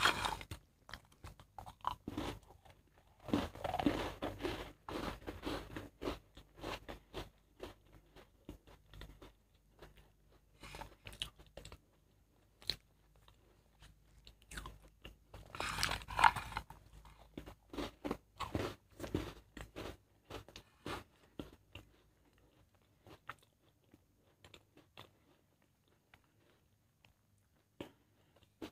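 A person biting and chewing crunchy biscuits: a run of short, crisp crunches with two louder stretches. The crunching thins out over the last third.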